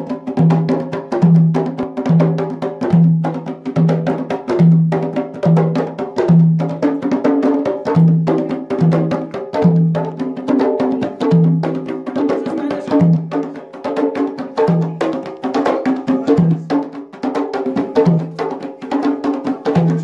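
Several hand drums played together by hand in a steady, fast rhythm: a deep drum tone sounds about once every 0.8 seconds beneath a dense run of sharp slaps.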